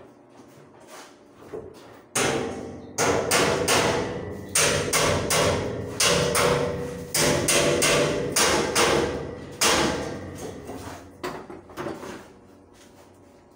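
Hammer blows on a steel staircase and its metal railing: a run of about twenty sharp strikes, irregularly spaced, each ringing briefly, starting about two seconds in and dying away shortly before the end.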